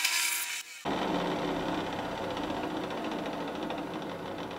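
Drill press running, its larger bit boring a hole through a white PVC pipe cap for the first second or so, a bright hissy cutting sound. After a brief dip the machine keeps running steadily, a lower, even mechanical hum.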